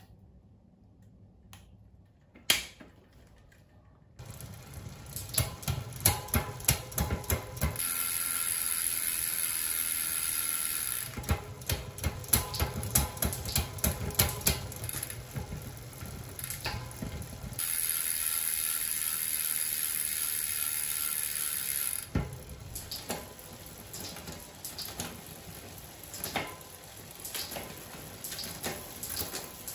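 Bicycle drivetrain turned by hand: the chain runs over the 12-speed cassette and derailleur while the rear hub's freehub ratchet clicks. Twice the clicking settles into a steady buzz for a few seconds as the wheel spins fast, then drops back to scattered clicks.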